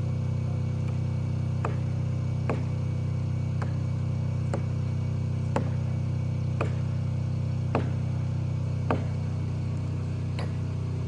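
Sharp knocks, about one a second, from blows struck at the base of a tree trunk being felled, over the steady drone of an engine running.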